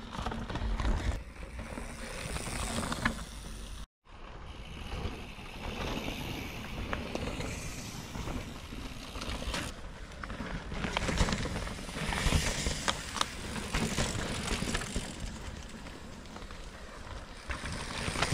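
Mountain bikes ridden past on a dirt forest singletrack, one after another: tyre noise on the soil with scattered clicks and rattles from the bikes, swelling and fading as each rider goes by. The sound cuts out briefly about four seconds in.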